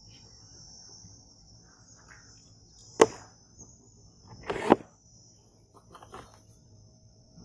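Cardboard box being cut and torn open with a key. There is a sharp crack about three seconds in, a short rip with knocks about a second later, and another crack near the end, over a steady high chirring of crickets.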